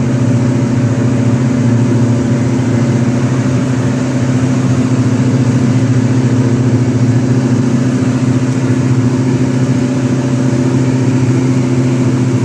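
A light aircraft's piston engine and propeller drone steadily, heard from inside the cabin in flight: a loud, even hum with a low pitch that does not change.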